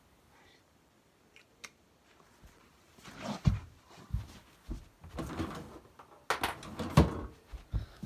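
Irregular knocks, thumps and rubbing, starting about three seconds in and loudest near the end, typical of an object being handled or moved about at close range.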